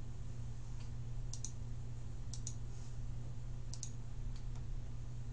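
Computer mouse clicking: three quick press-and-release double clicks about a second apart, then a couple of fainter ones, over a steady low hum.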